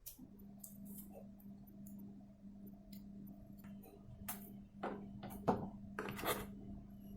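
Packaging and small items being handled during an unboxing: a few sharp clicks and crackles, the loudest about five and a half seconds in, over a steady low hum that starts just after the beginning.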